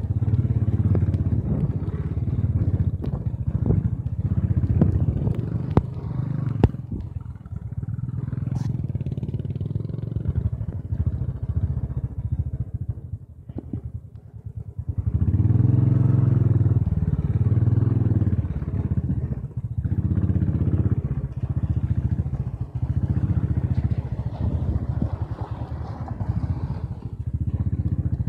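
Royal Enfield Bullet 500's single-cylinder engine running as the motorcycle rides over a rough, rocky track, with sharp clattering knocks from the stones and the bike's jolting through the first seven seconds or so. The engine eases off around thirteen seconds in and picks up again strongly at about fifteen.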